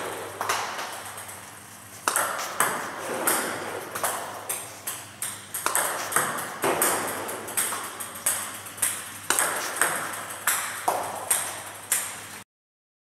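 Table tennis pendulum serves with topspin, repeated: a run of sharp clicks as the ball is struck by the paddle and bounces on the table, about two a second. The sound cuts off abruptly near the end.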